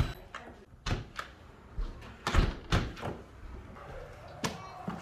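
Door handle hardware being fitted and worked on the door: a series of sharp clicks and knocks, about six of them, the loudest about two and a half seconds in.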